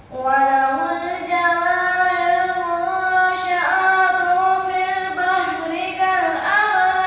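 A boy singing solo without accompaniment, holding long drawn-out notes that slide and bend between pitches, through a headset microphone.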